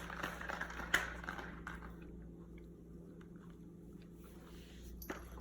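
Faint rustling and small clicks, with one sharper click about a second in, over a low steady room hum.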